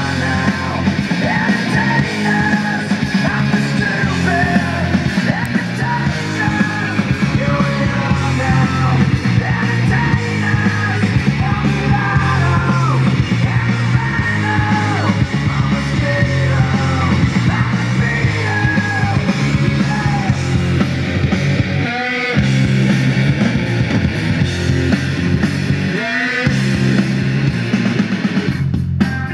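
A rock song with a singer, played back through a home stereo's loudspeakers driven by a Sony TA-F707ES integrated amplifier. The music drops out briefly twice near the end.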